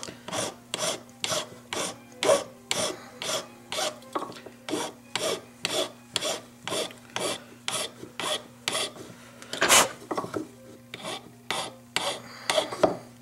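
Jeweller's flat hand file rasping on a small metal bezel setting in quick, even back-and-forth strokes, about two to three a second, with one louder stroke about ten seconds in. The file is opening the top of the bezel to an angle so the cabochon can seat in it.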